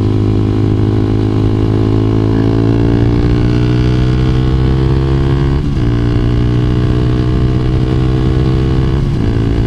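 2012 Honda CBR250R single-cylinder motorcycle engine running under way, its note rising slowly as the bike gathers speed. The note breaks briefly about halfway through and shifts slightly again near the end.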